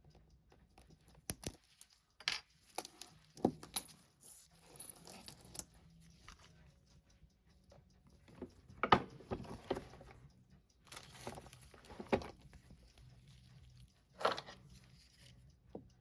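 Scattered small metal clicks, taps and short scrapes as the caseback of a Seiko 6139-6005 chronograph is worked off with watchmaker's tools. The back is loose and comes away without effort, never having been tightened.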